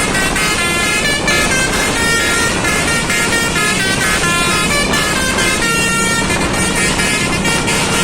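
Eka Persada bus's "telolet basuri" musical air horn playing a running melody of short notes that step up and down, over steady road noise.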